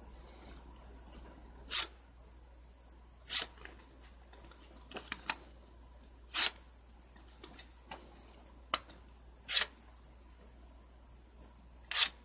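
Kershaw 1830 Oso Sweet pocket knife blade slicing through paper: five short cuts spaced a couple of seconds apart, with a few faint ticks in between. The blade is extremely sharp right out of the box.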